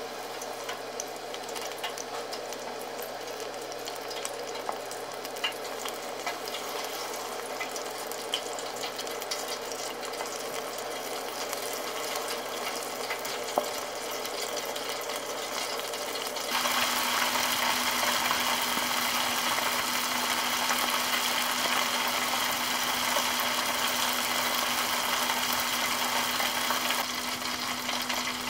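Batter-coated chicken gizzards deep-frying in 190 °C oil in a deep fryer: a steady sizzle with fine crackles and pops. About halfway through it becomes suddenly louder and brighter, with a low steady hum underneath.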